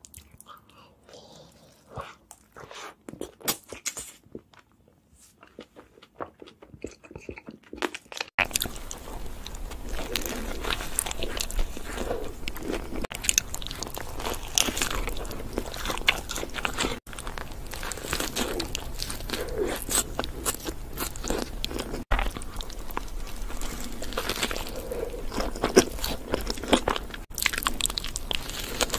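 Close-miked eating sounds: fainter crunchy bites and chewing of cheese-sauce-dipped fried chicken, then, from a cut about eight seconds in, louder and denser crunching and chewing of a crispy chicken burger.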